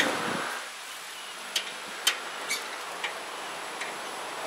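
Metal grill tongs clicking against each other and the grate of a kettle grill while burgers are turned: about five sharp ticks at irregular intervals, over a faint steady hiss.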